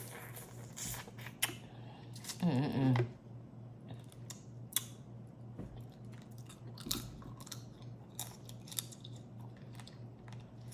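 Eating a crawfish boil up close: shells cracking and being peeled, with chewing and many sharp clicks and crackles scattered throughout. A short voiced hum about two and a half seconds in.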